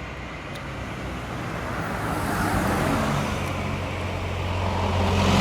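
Road traffic: a motor vehicle passes about two to three seconds in, and a louder one approaches near the end, its engine hum and tyre noise rising as it comes close.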